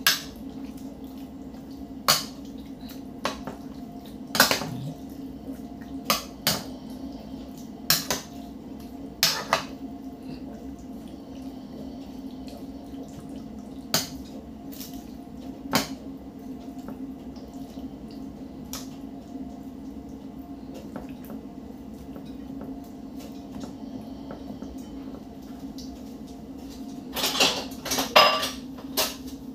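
Metal tongs clinking and tapping against a glass baking dish as chicken pieces are turned in marinade. The clicks are scattered every second or two, with a quick cluster near the end.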